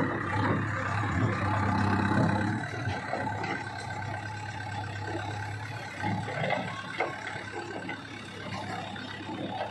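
JCB 3DX backhoe loader's diesel engine running under load as the backhoe arm works, louder for the first couple of seconds and then easing, with a few short knocks.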